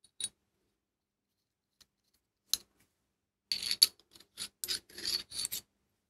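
Small steel parts of a milling-machine joystick lever handled by hand: a light click at the start and another about two and a half seconds in, then a couple of seconds of broken metal scraping and rubbing as the rod is slid into its block, the rod still slightly touching the part's inner walls.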